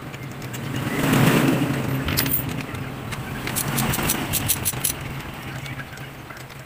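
A loud rushing swell rises and fades over the first couple of seconds. Then comes a run of sharp, irregular metallic clicks from a ratchet with a 16 mm deep socket and extension, working a spark plug out of the engine head.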